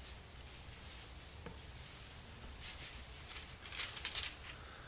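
Paper rustling as pages are handled at a pulpit microphone: a few soft rustles in the second half over quiet room tone.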